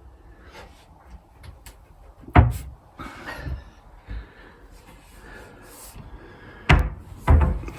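Wooden cupboard doors knocking shut: one sharp knock about two seconds in and two more near the end, with quieter handling noises between.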